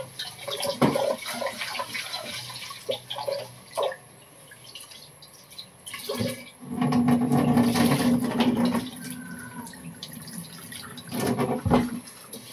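Tap water pouring into a stainless steel pot of rice while a hand swishes and rubs the grains to wash them. The splashing is loudest for a couple of seconds past the middle and comes again briefly near the end.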